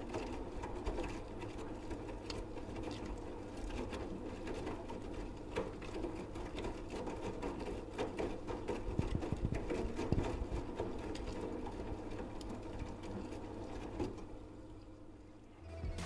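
AEG Lavamat 8000 Series front-loading washing machine in its 60 °C main wash: the drum motor hums steadily while towels and socks tumble through the wash water with many small clicks and splashes. The sound quietens near the end, just before the spin after the wash.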